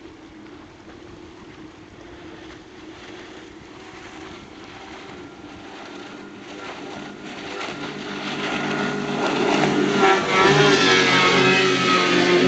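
Mariner 115 outboard motor on a 16-foot speedboat running at speed, faint at first and growing steadily louder over the last several seconds as the boat comes close. The hiss of its spray and wake rises with it.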